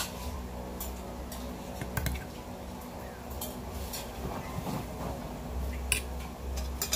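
A metal fork clinking and scraping on a plate while eating, several short sharp clinks spread a second or more apart, over a steady low hum.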